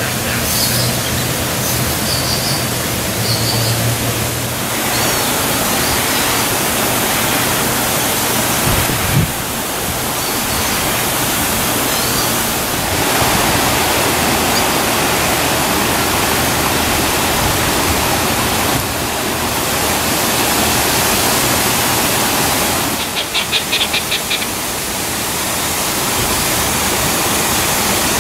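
Steady loud rushing noise, even across high and low pitches, with a few short high bird whistles in the first few seconds and a quick run of about eight sharp ticks late on.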